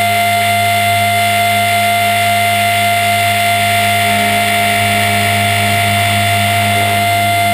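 HK450 electric RC helicopter in flight: a steady whine of the brushless motor and gearing with the rotor, several constant tones over a wide hiss, with a faint pulsing in the low hum.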